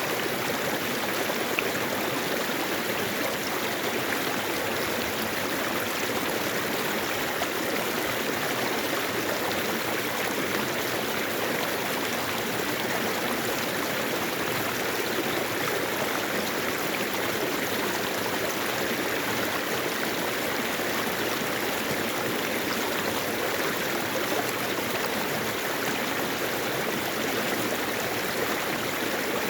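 Mountain stream water running over rocks: a steady, even rushing with no change.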